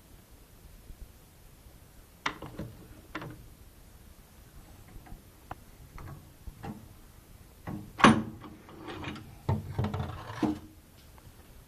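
Scattered clicks and knocks of hard objects being handled, with one sharp, loud knock about eight seconds in and a short run of rattling knocks near the end.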